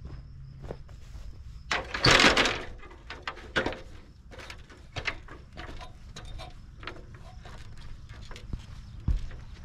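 Someone climbing an extension ladder onto an asphalt-shingle roof: a loud rattling scrape about two seconds in, then a run of irregular knocks and clicks of shoes on the ladder rungs and steps on the shingles.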